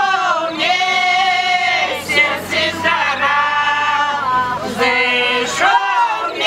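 A women's folk ensemble singing a Belarusian folk song together in several voices, in phrases of long held notes with short breaks about two seconds in and near the end.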